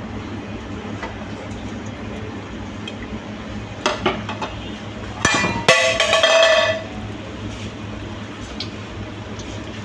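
Metal utensil knocking and clattering against a frying pan of hot oil: a couple of light knocks about four seconds in, then a louder clatter that rings briefly a second later. Under it runs a steady low hum and hiss.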